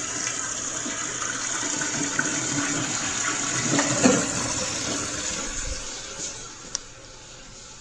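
Toilet flushing: water rushes through the bowl and down the drain, then tapers off about six seconds in to a quieter hiss. A single sharp click comes near the end.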